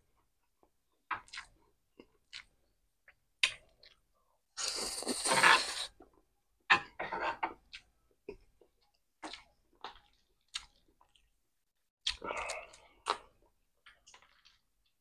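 A person chewing a mouthful of stir-fried noodles close to the microphone, with scattered short mouth clicks. About five seconds in there is a louder noisy burst lasting over a second, and another cluster of mouth noise comes near the end.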